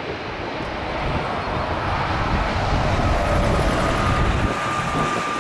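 Twin-engine jet airliner on final approach, its engines making a steady rumble that grows slightly louder as it nears, with a faint high whine coming in about halfway.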